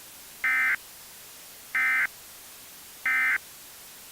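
Emergency Alert System end-of-message code: three short bursts of digital data tones, each about a third of a second and about 1.3 seconds apart, over a steady hiss of static.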